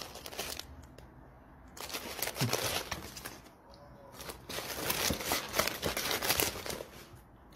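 Shredded crinkle-paper filling and a cardboard box rustling and crackling as a pet rummages inside, in several bursts with the longest near the end.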